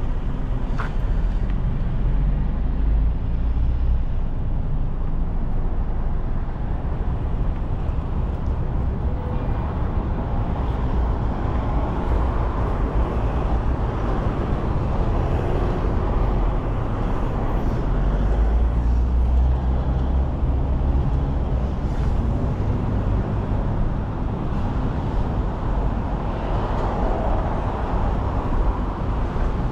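Road traffic on a busy multi-lane street: a steady deep rumble of cars and trucks going by, swelling as heavier vehicles pass a few seconds in and again about two-thirds of the way through.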